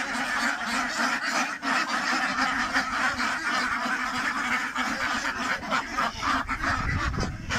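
A large flock of domestic ducks quacking continuously in a dense, overlapping chorus. A low rumble comes in near the end.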